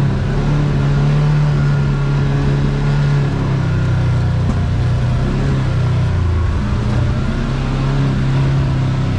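Side-by-side UTV engine running steadily while driving along a dirt trail, its note dropping a little about three seconds in as the throttle eases.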